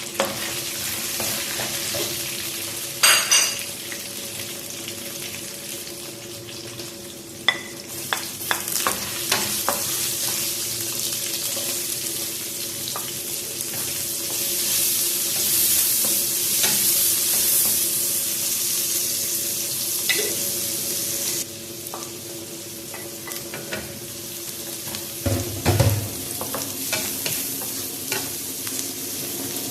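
Chicken wings sizzling in hot oil in a pan while being stirred, with a metal utensil clinking and scraping against the pan. There is a sharp ringing clink about three seconds in and a heavier knock near the end. The sizzle drops suddenly about two-thirds of the way through, over a steady low hum.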